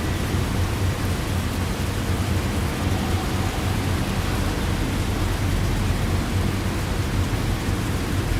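Steady heavy rain: an even, unbroken hiss with a deep low rumble underneath.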